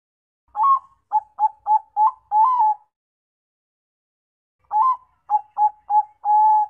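Zebra dove (perkutut, Thai 'Bangkok' song strain) singing two phrases of its staccato cooing song, each an opening coo, a quick run of short coos and a longer held final coo.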